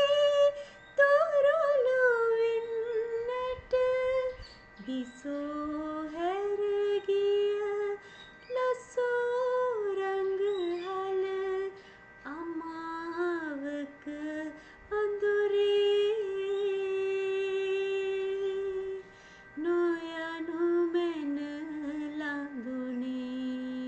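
A woman's voice singing a slow Sinhala song unaccompanied: long held notes with sliding, ornamented turns between them, in phrases separated by short breaths.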